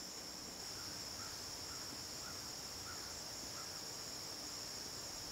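Steady high-pitched chorus of crickets in a late-summer field, with a few faint short chirps repeating about twice a second during the first few seconds.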